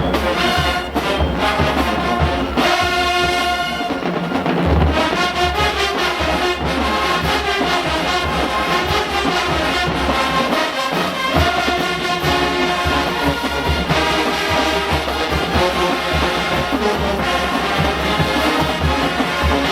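HBCU marching band playing: trombones and trumpets carry the tune over a steady drum beat.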